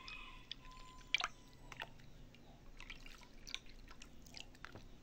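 Diluted dish detergent trickling and dripping from a ladle back into a plastic basin: faint, scattered drips and small splashes, the strongest about a second in.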